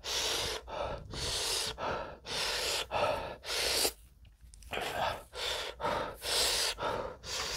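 A man gasping and panting in quick, hissing breaths, about two a second, with a short pause about four seconds in: a reaction to the burn of extremely spicy fire noodles.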